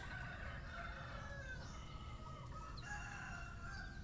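Rooster crowing twice, each a long crow of over a second.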